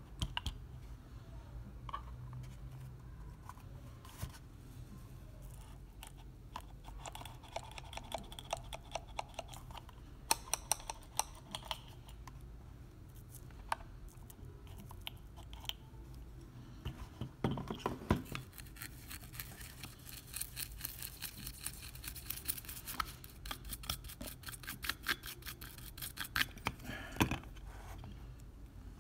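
Small flat brush scrubbing a game-controller circuit board, quick scratchy strokes in runs that come thickest in the second half, with scattered light clicks and taps.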